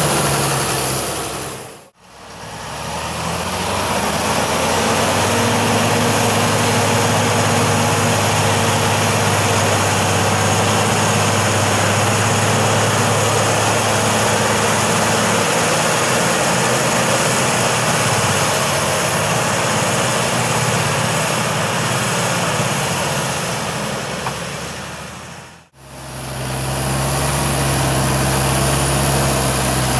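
Deutz-Fahr Agrotron tractor diesel engines running hard under load as they pull through deep mud, with a tractor towing a bogged slurry tanker. The sound fades out briefly at about two seconds and again near the end, where the shots change.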